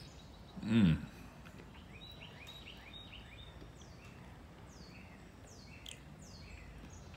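Small birds chirping in the background: a run of short, quick, falling chirps over a low steady hiss. A man makes one short vocal sound just under a second in.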